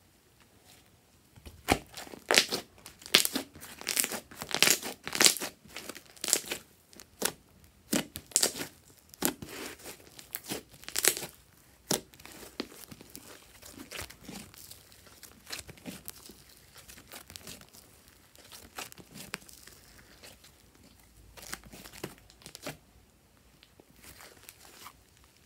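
Hands stretching and squishing fluffy slime: sticky crackling and popping as it pulls and presses, dense in the first half and sparser later.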